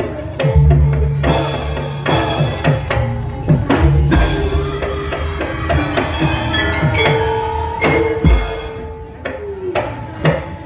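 Live Javanese gamelan music accompanying a dance: rapid hand-drum strokes and sharp struck hits over ringing bronze notes.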